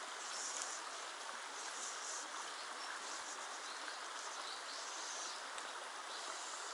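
Shallow rocky mountain stream running steadily over stones, with short, faint high-pitched sounds every second or so.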